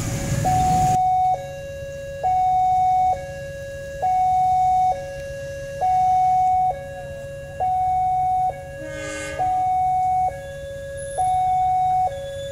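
Railway level-crossing warning alarm sounding an electronic two-tone signal, alternating a higher and a lower tone about once a second, which signals that a train is approaching. A short blast breaks in about nine seconds in.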